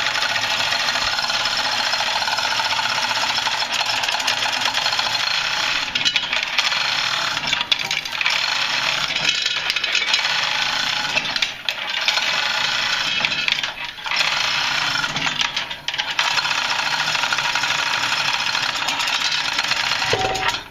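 Continuous metallic rattling of tool work on an EMD 567 diesel engine as a cylinder liner is being pulled out, with a few brief pauses in the second half.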